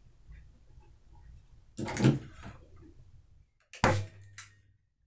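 Hand staple gun firing a staple through linen canvas into a wooden stretcher bar: one sharp snap near the end, about two seconds after a duller knock and rustle of handling.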